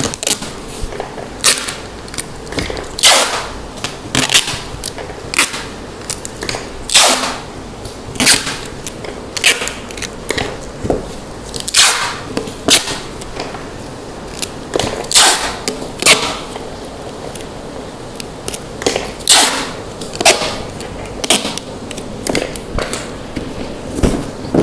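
Clear packing tape being pulled off the roll in repeated short screeches, roughly one every second or so, as it is wound round a box wrapped in a black plastic garbage bag, with the plastic crinkling between pulls.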